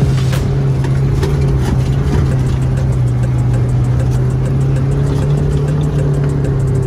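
A vintage Land Rover's engine running at a steady drone while driving over desert sand, heard from inside the vehicle, with scattered short knocks.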